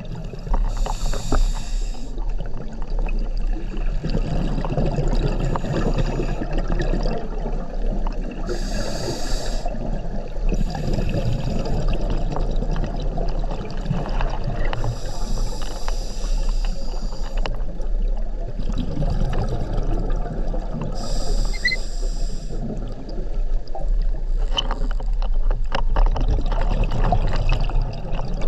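Scuba diver breathing through a regulator underwater: a hissing inhalation every six seconds or so, alternating with the gurgle of exhaled bubbles, heard through a camera's underwater housing.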